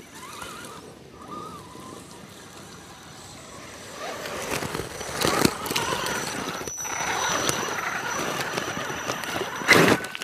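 RC truck driving through a shallow, icy creek: its motor whining and its tyres splashing water and scrabbling over rocks, building up and loudest as it passes close about halfway through and again near the end.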